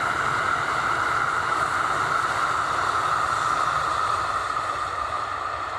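Kintetsu 80000 series Hinotori limited-express electric train running past at full speed, a steady rush of running noise with a high hum whose pitch sinks slightly as the train draws away.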